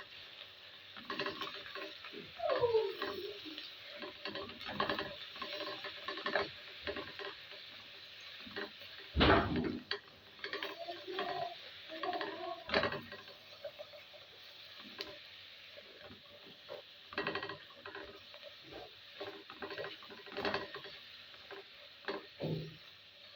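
Onions frying and sizzling in a pot while a spoon stirs and scrapes, with scattered knocks of the spoon and utensils against the pot. There is one louder knock about nine seconds in.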